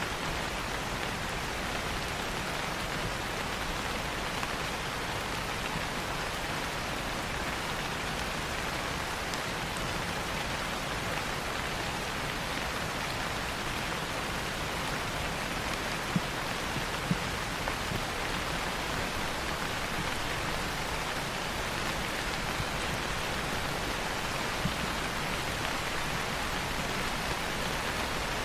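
Steady rain falling as an even hiss, with a few sharp isolated clicks, a handful about halfway through and one more near the end.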